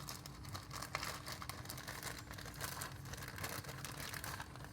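Plastic zip-top bag crinkling and rustling in the hands as clay is packed into it, a run of small irregular crackles.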